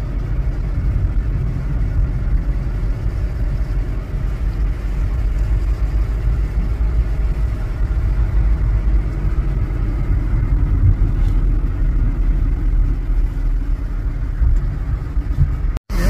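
Road and engine noise inside a moving car's cabin, a steady low rumble that cuts out for a moment near the end.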